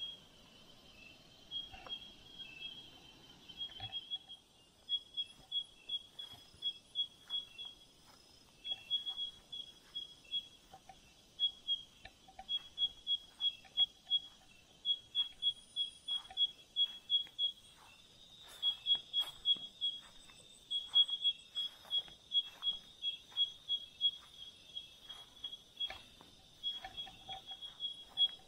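Night insects, crickets or katydids, chirping: a steady high trill with trains of short, rapid chirps repeating over and over.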